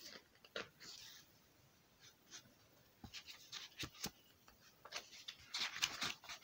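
Faint rustling and light clicks of paper pages being handled, busier near the end as a page is turned.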